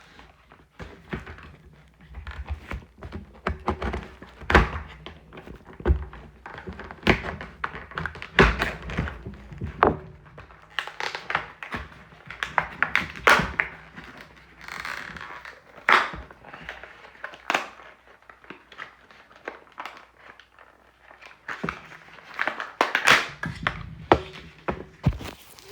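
Irregular thuds, taps and knocks with some crinkling as a pocket knife's retail packaging is handled and worked open by hand.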